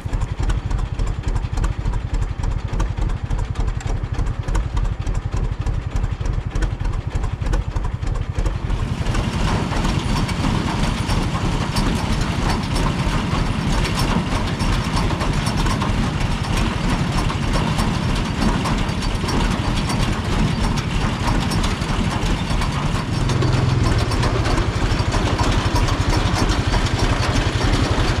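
Engine running steadily. It gets louder and fuller about nine seconds in, as if throttled up or put under load, and a steady low hum joins it about 23 seconds in.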